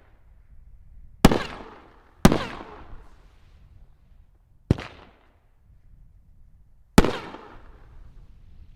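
Four sharp bangs from 3-inch aerial firework shells fired off a nine-on-a-board rack, the first two about a second apart, each trailing off in an echoing rumble.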